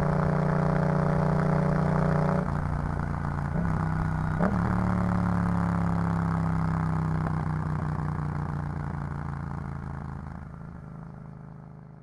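Yamaha MT-07's parallel-twin engine running through an Arrow full exhaust system, steady at first, then shifting pitch about two and a half seconds in and slowly dropping, with a short click in the middle. The sound fades out near the end.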